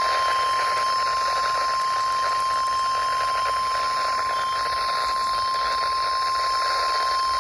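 NOAA Weather Radio warning alarm tone: a single steady 1050 Hz tone held about eight seconds over radio static, the signal that a warning message follows. It cuts off near the end.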